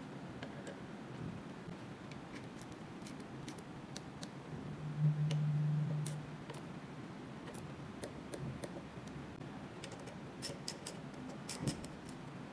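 Small ratchet wrench clicking in scattered clicks, with a quick run of clicks near the end, as it turns the bolts of a motorcycle steering damper mount. A brief low hum about five seconds in is the loudest sound.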